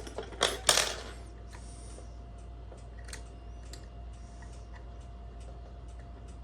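Homemade lever picks clicking and scraping in a five-lever mortise lock: a short loud metal clatter in the first second, then light scattered ticks.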